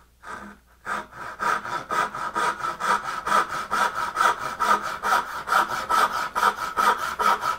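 Hand backsaw cutting down a line in a board for a finger joint: a short starting stroke, then steady, even strokes, about four a second, from about a second in.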